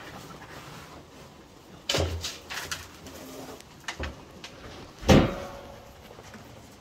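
Cattle feeding at grain troughs, nosing and snuffling through the feed. A few sharp noises come about two seconds in, and a louder burst about five seconds in trails off over half a second.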